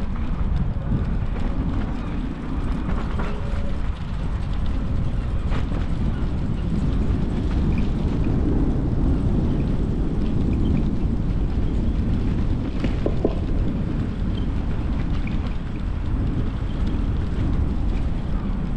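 Steady low rumble of wind on the microphone of a moving bicycle, mixed with tyre noise rolling over block paving and a few light clicks and rattles.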